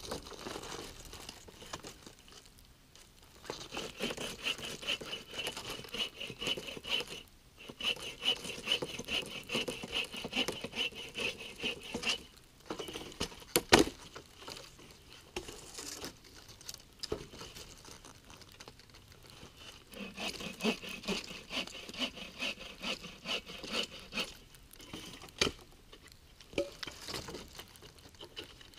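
Dead branches being worked on the snow: long stretches of scraping and rustling, with one loud sharp crack about fourteen seconds in and a few smaller snaps later.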